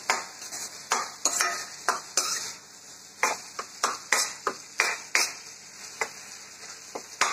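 Spatula stirring chopped onions and tomatoes in a kadai, with irregular scrapes and knocks against the pan a few times a second over a faint steady sizzle of the vegetables frying in oil. The tomatoes are being sautéed down until they soften and shrink.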